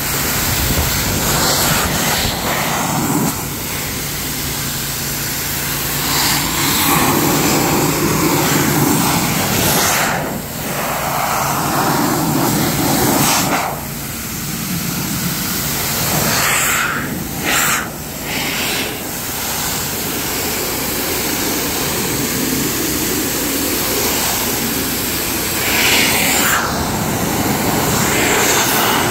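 Handheld car-drying blower running, a loud steady rush of air blasting water off the car's paint and glass. The rush swells and changes in tone several times.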